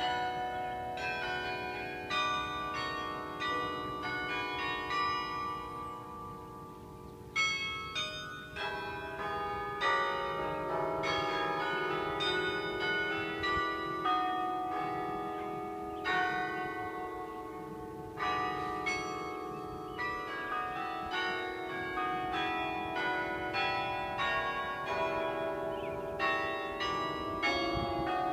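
Carillon bells being played as a melody, many struck bell notes following one another and ringing on over each other. The playing thins and dies away about six seconds in, then picks up again with a new strike a second or so later.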